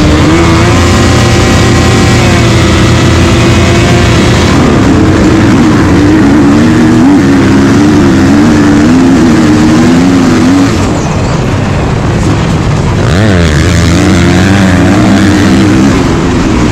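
2022 Kawasaki KX450's single-cylinder four-stroke motocross engine heard from on board while racing, its pitch held steady at first, then rising and falling with the throttle, dropping about two-thirds of the way through and climbing again.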